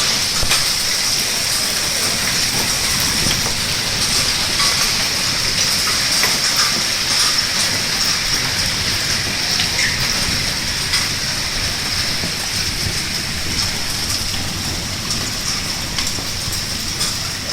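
Hail pelting down in a heavy storm: a dense, steady hiss with many small, sharp ticks of hailstones striking surfaces.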